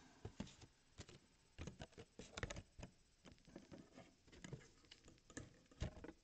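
Faint, irregular taps, clicks and scuffs of cardboard trading-card boxes being handled and set down on a table.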